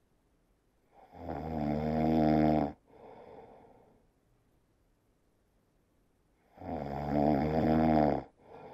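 Domestic cat snoring in deep sleep: two long, loud snoring breaths in, about five and a half seconds apart, each followed by a softer breath out.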